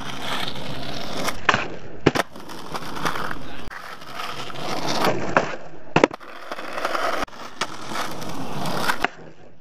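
Skateboard wheels rolling on concrete, with several sharp clacks of the board popping and landing during flatground tricks.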